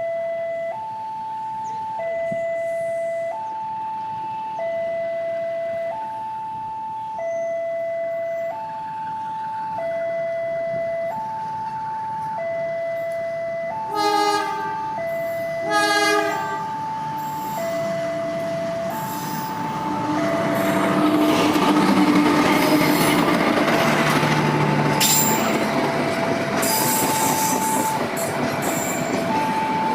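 Railway level-crossing warning alarm alternating steadily between a higher and a lower tone, each held about a second. About fourteen seconds in, the approaching Kaligung train's horn gives two short blasts. From about twenty seconds the train passes, its wheels clattering over the rail joints under the continuing alarm.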